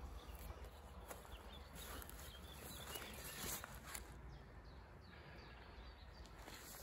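Faint outdoor ambience with light handling noise: soft rustles and small clicks from a hand gripping the gathered end of a nylon basha hammock and its cord, plus a few faint bird chirps.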